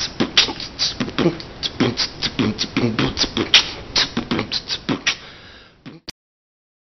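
Human beatboxing: a fast run of mouth-made drum sounds, with sharp clicking strokes and deeper thuds, that tails off and cuts out about six seconds in.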